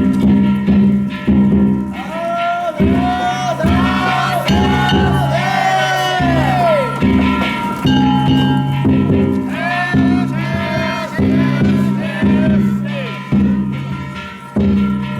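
Danjiri festival music: a pounding drum with gongs ringing steadily, and voices chanting in rising-and-falling calls over it.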